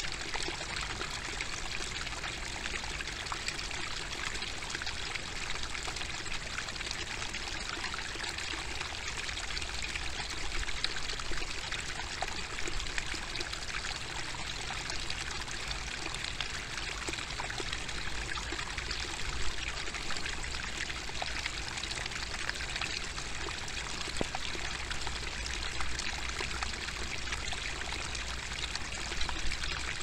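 Small rocky stream babbling steadily, its water trickling and splashing over stones in a little cascade.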